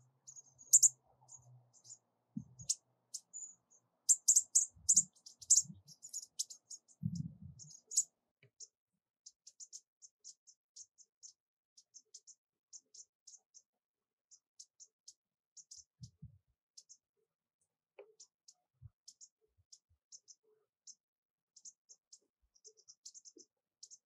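American bushtits' high, thin contact calls: a rapid scatter of short ticking notes, densest and loudest from about four to eight seconds in, then sparser. A few soft low thumps come in the busy stretch.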